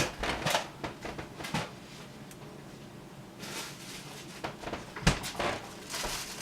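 Kitchen handling sounds: a few short knocks and clicks, with a brief rustle about three and a half seconds in.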